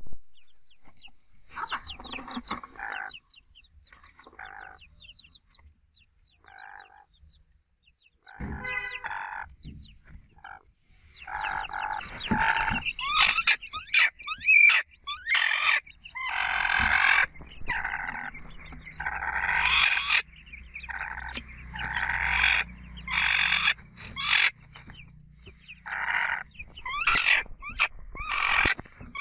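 Small bamboo chicken (bantam) hens clucking and calling, sparse at first and then near-continuous from about eleven seconds in.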